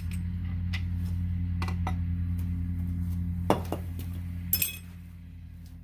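Metal clinks and taps of a wrench and loose hardware on a sterndrive propeller nut and hub while the prop is being removed, with a sharper clank about three and a half seconds in and a bright metallic clatter about a second later. A steady low hum runs underneath and drops away just after the clatter.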